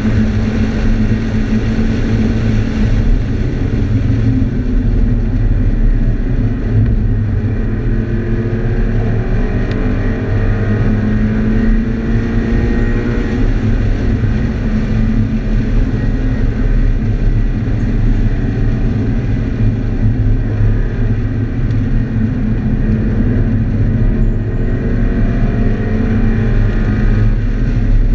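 Scion FR-S's 2.0-litre flat-four engine heard from inside the cabin at speed on a race track, its note rising and falling slowly with the throttle over a steady drone of road and wind noise.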